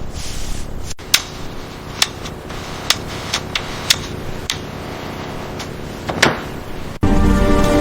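Irregular sharp knocks and taps, about nine over six seconds, following a second of steady hiss. Music comes in abruptly near the end.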